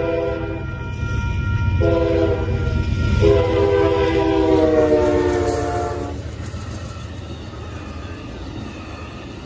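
Amtrak Texas Eagle passenger train's locomotive horn finishing its grade-crossing signal: a long blast that ends half a second in, a short blast around two seconds, then a final long blast that slips slightly lower in pitch. Under the horn the train's low rumble is loudest midway and fades as the passenger cars roll past.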